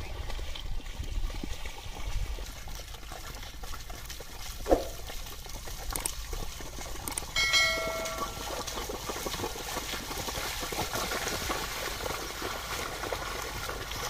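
Muddy water splashing and sloshing as a pair of bullocks drag a wooden leveling board through a flooded paddy field. About a third of the way in there is one sharp click, and past the middle a short ringing chime from a subscribe-button animation.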